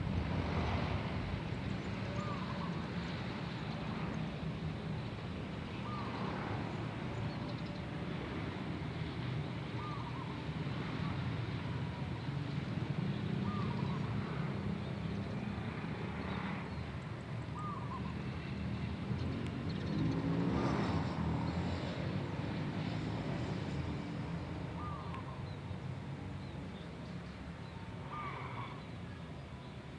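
A wild zebra dove (perkutut) cooing, short coos repeated every few seconds, of the voice type that keepers call 'bedah karang'. A steady low rumble runs underneath, with a louder swell of noise about two-thirds of the way through.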